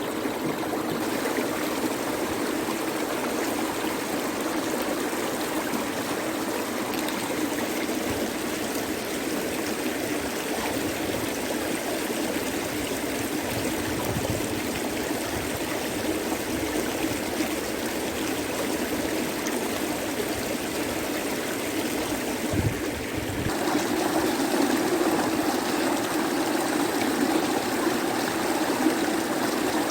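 Swollen river in flood, its water rushing steadily. It gets louder about 23 seconds in.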